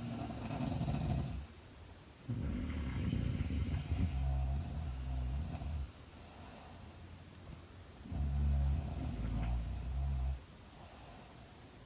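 A woman asleep, snoring: three long, low snores a few seconds apart, with softer breathy exhales between them.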